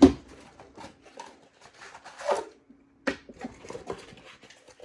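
Packaging being handled and pulled out of a cardboard box: a scattering of short rustles, crinkles and light taps, loudest near the start and again around the middle.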